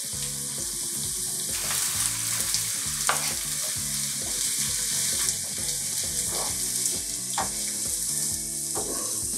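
Sliced artichoke frying in olive oil in a frying pan: a steady sizzle, with a wooden spoon stirring and scraping the pan a few times.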